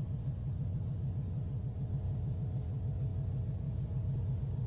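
Steady low rumbling hum of sci-fi laboratory machinery in an animated soundtrack, slightly pulsing, with faint sustained tones above it.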